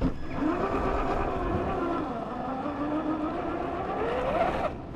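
Traxxas TRX4 RC crawler's electric motor and geared drivetrain whining under throttle, the pitch dipping and rising with speed and climbing near the end before cutting off suddenly.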